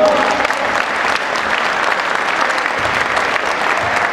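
Crowd applauding steadily: a dense patter of many hands clapping.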